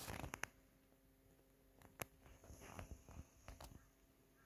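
Near silence, with a few faint clicks and rustles at the start, one sharp click about two seconds in, and some weaker ones after it: handling noise from the camera being moved.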